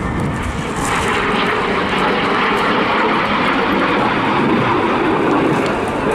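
BAC Strikemaster Mk 82A jet trainer in flight, its Viper turbojet making a steady rushing noise that grows a little louder about a second in.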